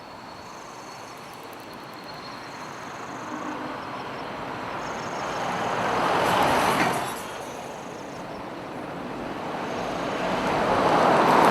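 Vehicles passing close by one after another. The noise swells to a peak about six and a half seconds in, drops away, then builds again to a second pass near the end.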